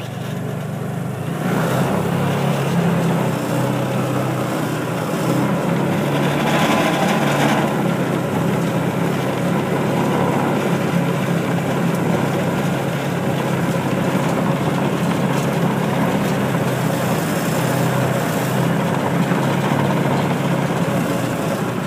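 Engine of the farm vehicle being ridden, running steadily as it drives along, with driving noise over it. It gets louder about a second and a half in.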